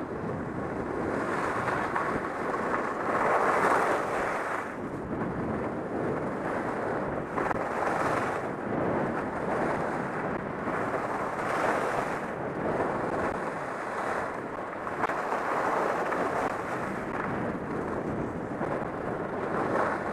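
Wind rushing over a helmet-mounted camera's microphone while skiing downhill, mixed with skis scraping over groomed packed snow. The noise swells and eases every second or two as the skier turns.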